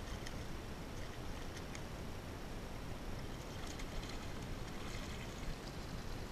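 A hooked fish splashing at the surface beside a kayak, and a landing net dipped into the water to scoop it, with scattered sharp splashes near the start and again in the middle. Under it runs a steady low rumble.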